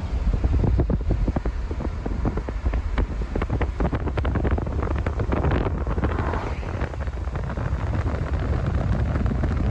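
Wind buffeting the microphone in irregular gusts over the low rumble of a moving car.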